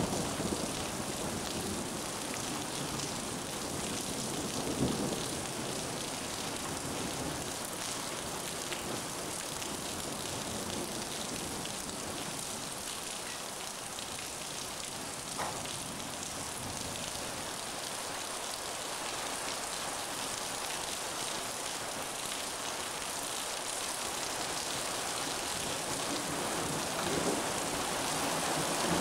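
Steady rain pouring down in a thunderstorm, with a short knock about five seconds in and a faint click around fifteen seconds.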